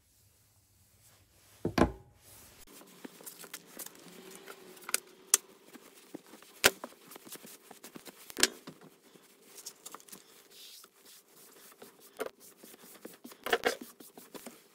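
A cloth rubbing and wiping, first along a sanded steel knife blade and then across a wet wooden workbench, with scattered sharp clicks and knocks, the heaviest about two seconds in.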